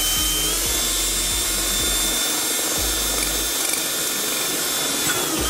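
Cordless drill running steadily at high speed while driving a mounting bolt into a plastic panel. Its motor whine steps up slightly about half a second in and winds down just before the end.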